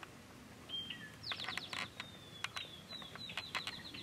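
Birds calling: a short high whistle about a second in, then a long run of quick, high chirping notes that slowly fall in pitch until near the end.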